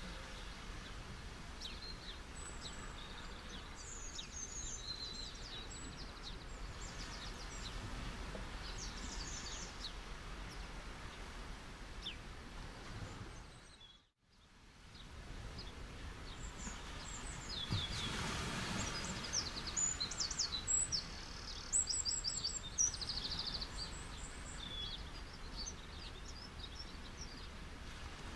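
Beach ambience: a steady wash of ocean waves, with birds chirping high and quick throughout. The sound dips to silence for a moment about halfway through and fades back in, and a wave swells up a few seconds later.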